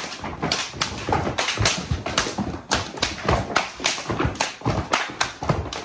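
A group of dancers' feet stamping and striking a wooden plank floor during Hungarian folk dance practice, a rapid, irregular run of sharp hits several a second, without music.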